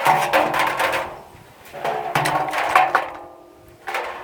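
Metal clattering and clanking with a ringing tone, in two bursts of about a second each and a shorter one near the end, as a washing machine's metal drum is worked loose from its clips.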